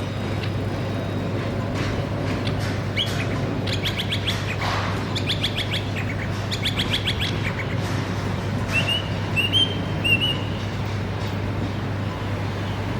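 Small birds chirping in rapid trills, then a few short rising chirps, over a steady low hum.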